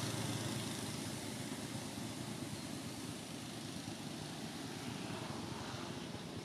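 Steady low drone of a distant engine, slowly fading.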